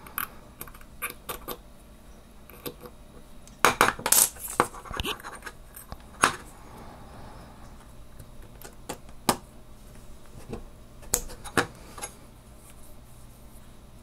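Small metal parts clicking and clinking as the drag washers are picked out of a spinning reel's spool with a pick tool and set down, in scattered sharp clicks that are busiest about four seconds in.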